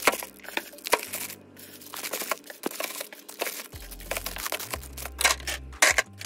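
Plastic-bagged rolls of clear nano tape being handled and set into a clear acrylic bin: the bag plastic crinkles, and there are many sharp clicks and knocks of plastic against plastic.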